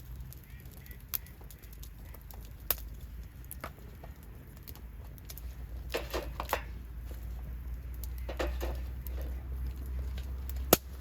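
Wood bonfire crackling, with scattered sharp pops and short clusters of crackles over a steady low rumble; the loudest pop comes near the end.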